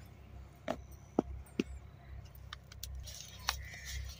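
Scattered small clicks and clinks as plastic containers and a jar lid are handled, about five separate taps, then a light paper rustle near the end as a folded paper packet is opened.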